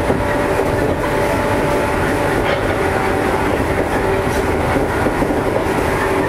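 Running sound inside a JR East 115 series electric train travelling at steady speed: an even rumble of wheels on rail, with a steady hum and a few faint rail-joint clicks.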